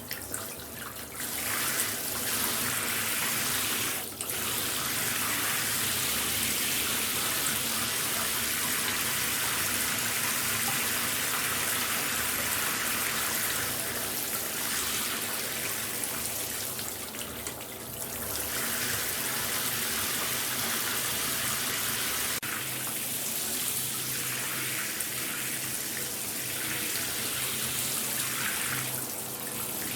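Shower running: a steady hiss of water spray. It is quieter at first, swells about a second and a half in, and dips briefly a few times.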